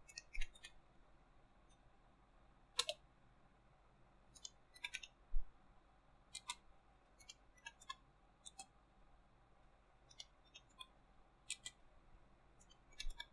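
Computer keyboard keys being typed: faint, irregular clicks, some single and some in short runs, with pauses of a second or more between them.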